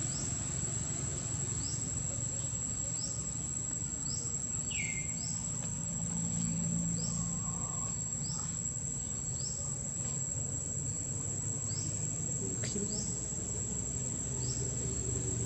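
Insects droning in a steady high-pitched tone, with a short rising chirp repeating about every 0.7 seconds and a low steady hum underneath.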